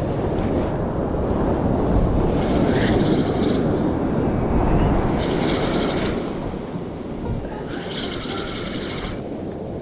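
Steady wind and sea surf on the microphone, with three stretches of a brighter, higher whirring noise about a second long each, the last near the end.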